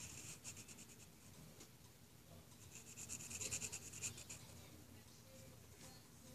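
Faint pencil scratching on paper as curved lines are drawn, with a quicker, denser run of strokes about three to four seconds in.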